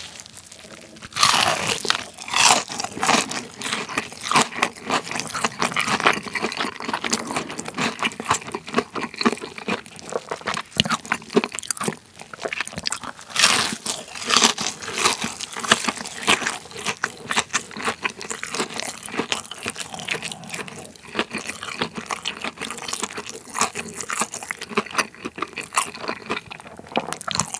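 Close-miked bites into a large breaded fried chicken cutlet (Lotteria Jipai) with a very crispy crust. A loud crunch comes about a second in and another bite follows later, with continuous crunchy chewing in between.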